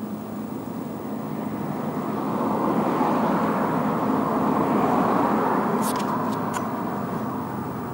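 A car passing by on a city street, its road noise swelling over a few seconds and then fading, with three short, sharp high clicks near the end.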